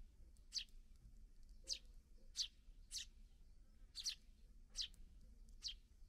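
Eurasian tree sparrows chirping: about seven short, high, downward-sliding chirps, spaced roughly half a second to a second apart.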